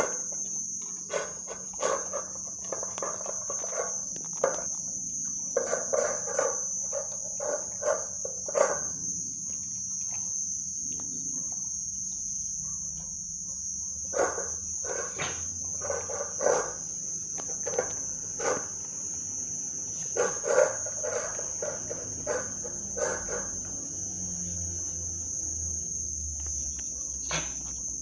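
American Pit Bull puppy eating raw food from a metal bowl: irregular wet chewing, smacking and clicks that come in clusters with short lulls between. A steady high chirring of crickets runs underneath.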